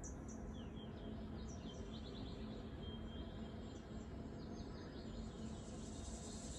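Faint bird chirping: runs of short, quick, falling chirps over a steady low hum.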